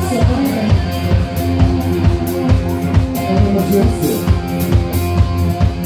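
Band playing an upbeat instrumental intro: a drum kit keeping a steady, even beat over bass and pitched melody instruments, with no vocals yet.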